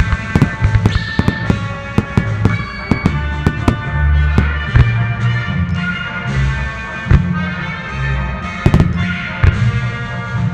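Aerial firework shells bursting in quick, irregular succession, many sharp bangs, over music.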